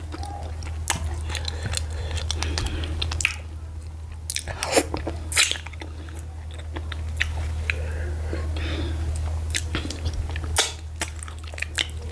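Close-miked wet eating sounds of garri fufu and ogbono soup eaten by hand: scattered sticky smacks and clicks of chewing and of licking soup off the fingers. A steady low hum runs underneath.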